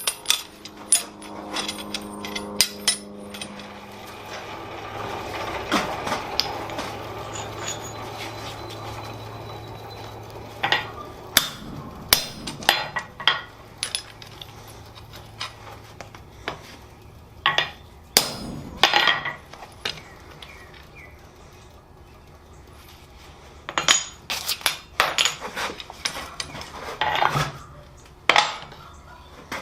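Blacksmith's hammer striking hot steel on an anvil in several groups of blows, each strike ringing, while a tong rein is drawn out for an integral tong clip. Between the groups there is a steady rushing noise with a low hum.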